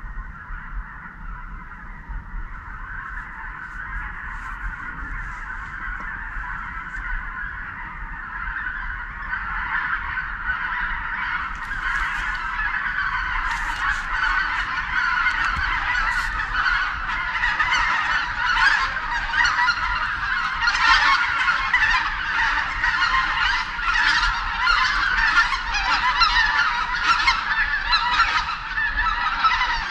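A large flock of wild geese honking as it flies over, many overlapping calls that swell steadily louder through the second half.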